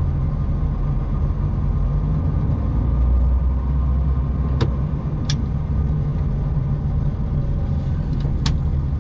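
HGV lorry's diesel engine running steadily at low speed, heard from inside the cab as a low rumble. There are a few short sharp clicks or knocks in the cab around the middle and near the end.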